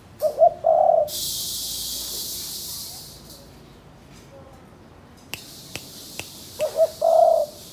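Spotted dove cooing: two phrases, one at the start and one near the end, each two quick short notes followed by a longer coo. Between the phrases there is a steady high hiss and a few faint clicks.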